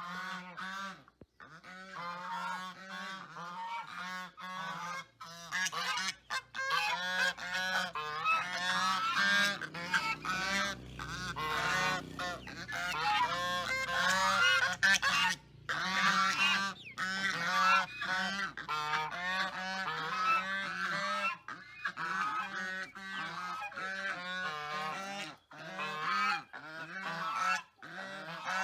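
Many farm animals calling at once: a dense chorus of short, overlapping calls that swells loudest in the middle.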